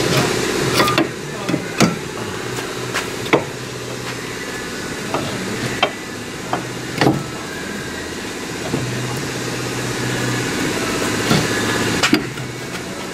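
Scattered metal clanks and knocks of tools and suspension parts during the strut work, irregular and a second or more apart, over a steady background hum.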